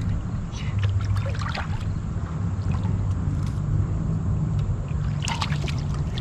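Water trickling and gurgling around a small canoe or kayak over a steady low rumble, with a few light clicks and scrapes about a second in and again near the end.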